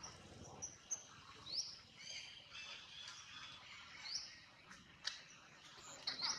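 Small birds chirping outdoors: short high whistled notes that sweep upward, a few seconds apart, with smaller chirps between, over a faint steady hiss of ambience.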